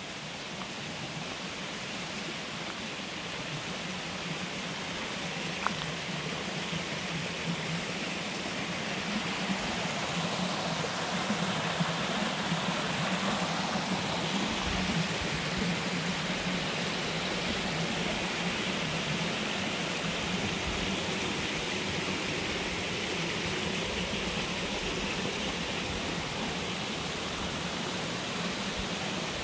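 Steady rushing water of a waterfall, growing gradually louder over the first half and then holding.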